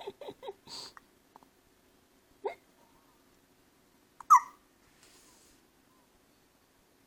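Baby hiccupping, brought on by a big feed: two sharp hiccups about two seconds apart, the second louder, after a few short soft sounds in the first second.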